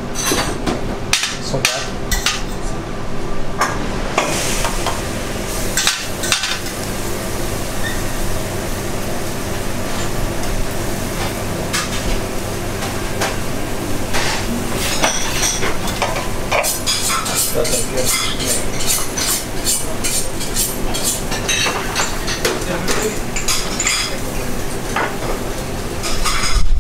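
Restaurant kitchen working sounds during service: a steady hum under frequent clinks and clatter of metal utensils, trays and plates being handled, busiest near the start and in the second half.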